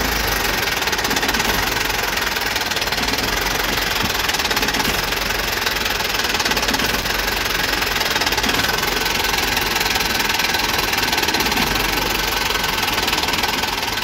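A vehicle engine idling steadily, with a fast, even rattle.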